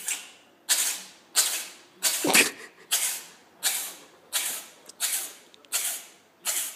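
A cat sneezing in a rapid run, about ten sharp, hissing sneezes roughly two-thirds of a second apart; the one a little past two seconds in is the loudest.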